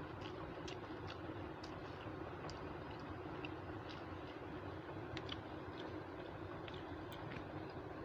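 Quiet eating by hand: soft, irregular clicks and smacks of fingers mixing rice and curry on a metal plate and of chewing, over a steady background hum.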